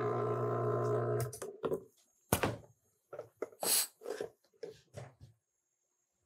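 Vacuum pump running with a steady low drone, cut off abruptly about a second in. Then a string of knocks and clicks as the vessel's lid fitting and hose are handled, the loudest a little after two seconds in, with a brief hiss just before four seconds.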